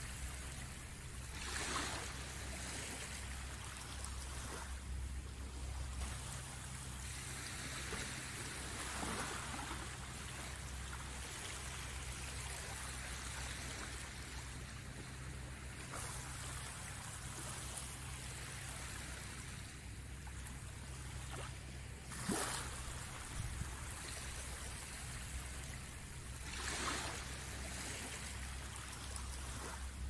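Small waves of a calm sea lapping and washing up the shore, a soft continuous hiss swelling into louder washes a few times, with a low steady rumble underneath.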